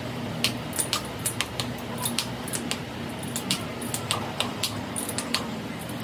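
Small metal parts and hand tools clicking and tapping against each other in an irregular run, several a second, over a steady low machine hum.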